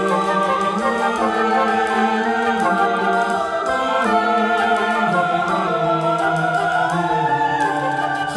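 Music: choral voices holding long chords over instruments, the harmony moving in slow steps.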